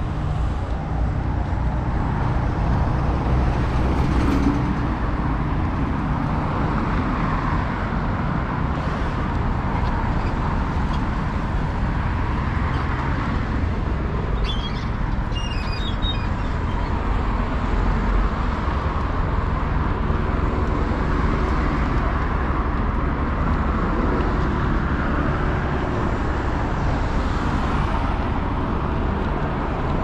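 Steady road traffic on a wide city street, cars passing with a constant low rumble of engines and tyres.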